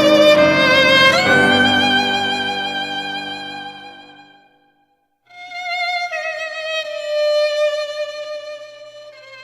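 Background instrumental music: a full held chord fades away about halfway through, a brief gap follows, then a slow solo melody with vibrato begins.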